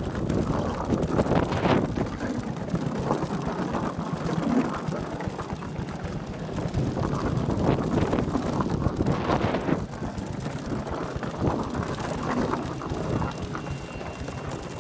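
Wind buffeting the action camera's microphone over a steady rumble and clatter of a wheeled fishing cart rolling over wooden pier planks.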